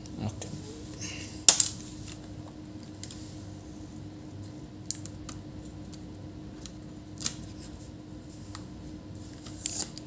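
Scattered light clicks and taps of hands handling an opened laptop's plastic case and internal parts, the sharpest cluster about a second and a half in, over a faint steady hum.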